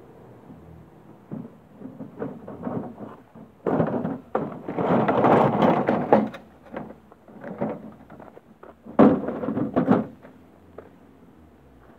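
A Wolf walk-behind lawnmower with its engine off being wheeled over the ground and handled, giving irregular bursts of rattling, rustling and knocks along with footsteps. The loudest stretches come a little before the middle and again about nine seconds in.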